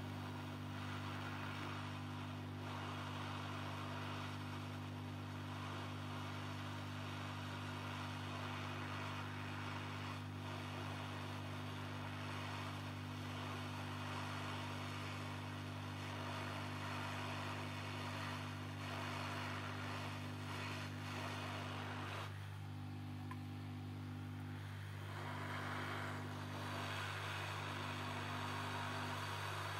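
Hot-air gun blowing steadily with a constant low hum and a rush of air, melting a hot-glue stick. The airflow rush drops away for a few seconds about two-thirds of the way through, then comes back.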